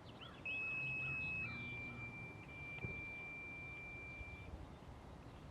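Birds chirping, with a steady high-pitched electronic tone that starts about half a second in, steps down slightly in pitch about a second later, and cuts off about four and a half seconds in.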